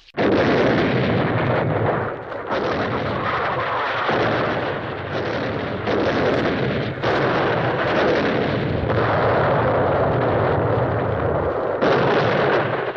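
Loud, continuous explosion-and-gunfire sound effect, like a heavy artillery barrage. It starts abruptly and shifts character every few seconds, as if several takes were joined end to end.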